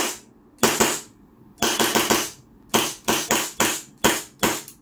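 EMG STI John Wick 3 gas blowback airsoft pistol firing rapid shots, each a sharp crack as the gas fires and the slide cycles. About a dozen shots come in quick groups of two to four.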